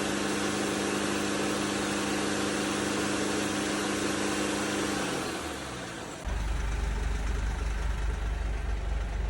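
2010 Mercedes Sprinter's diesel engine held at a steady raised speed for about five seconds, then its pitch falls as the revs drop back. From about six seconds in there is a deep steady rumble at idle. The engine is being run at raised revs and at idle to check the DPF back-pressure after the filter clean.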